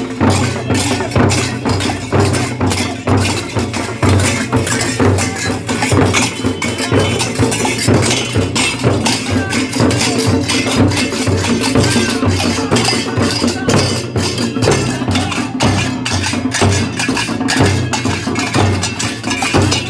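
Dhol drumming with brass hand cymbals clashing along, a fast, steady percussion beat with deep drum strokes under the bright cymbal crashes.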